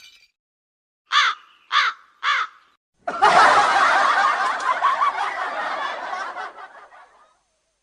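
Three quick crow caws, the stock meme sound effect, followed by canned group laughter that lasts about four seconds and fades out.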